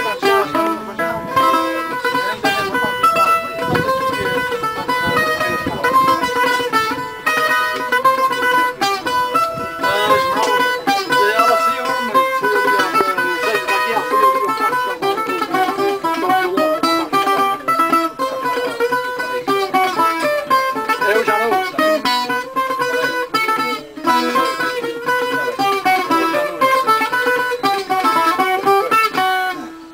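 Portuguese guitar played solo: a continuous melody of quickly plucked metal-string notes with ringing runs and chords.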